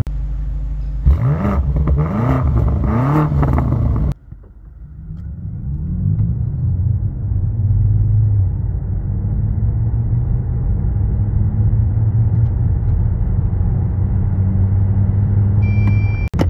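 BMW M5 G90's twin-turbo V8 pulling hard through several quick upshifts, then cut off abruptly about four seconds in. Then the hybrid M5 accelerates in electric-only mode: a steady electric drive and road noise that builds slowly and evenly as speed rises. A short electronic beep comes near the end.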